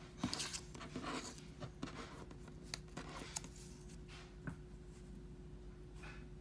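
A technical pen's fine metal nib scratching and tapping on a clear acetate animation cel, with the plastic sheet rustling as it is shifted: a cluster of scratchy strokes in the first second and a half, then a few separate light ticks and one more short scratch near the end.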